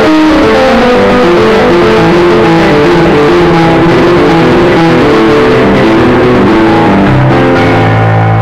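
Electronic keyboard played loud, a fast run of many quickly changing notes; about seven seconds in a low bass note comes in and is held.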